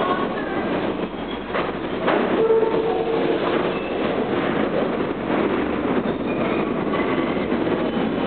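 R68 subway train of the D line pulling out of the station into the tunnel: a steady rumble of wheels on rail, with two sharp clacks at about one and a half and two seconds in and thin wheel squeals.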